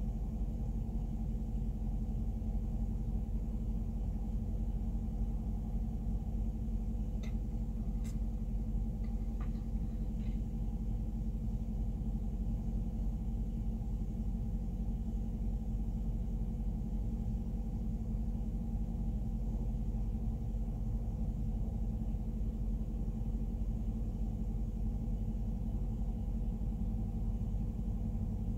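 Freight train of covered grain hopper cars rolling over a steel truss bridge: a steady low rumble with faint ringing tones, and a few faint clicks partway through.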